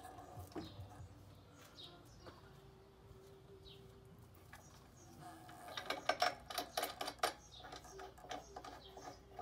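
Birds chirping faintly in the background. About six seconds in, a quick run of clattering knocks and clicks comes as the Razor electric scooter is handled and shifted on the concrete.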